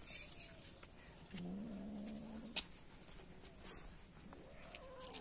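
Domestic cat growling low for about a second, then starting a wavering yowl near the end, with a couple of sharp clicks in between.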